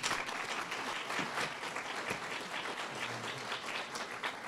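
An audience applauding, many hands clapping together without a break.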